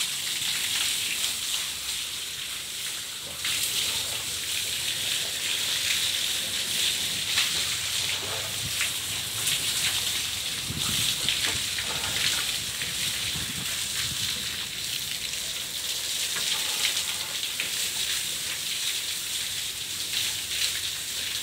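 A thick stream of water pouring and splashing steadily as a freshly cast concrete roof slab is water-cured.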